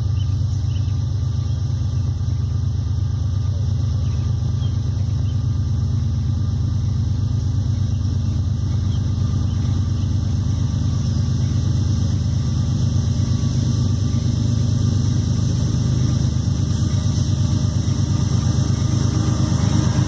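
Diesel freight locomotives rumbling as they approach a grade crossing, a steady deep engine drone that grows a little louder as the train nears.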